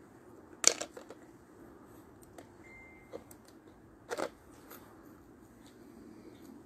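Two sharp knocks or clicks, the loudest about a second in and another about four seconds in, with a few fainter clicks between and a brief faint high beep near the middle, over a low steady hiss.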